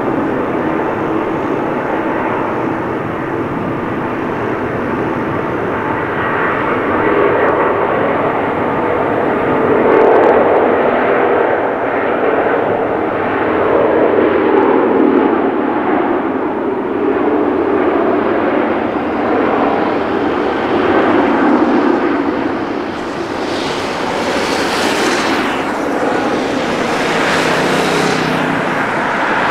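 Wide-body jet airliner's turbofan engines running loud and steady, swelling and easing a little, with a rush of higher hiss coming and going in the last several seconds.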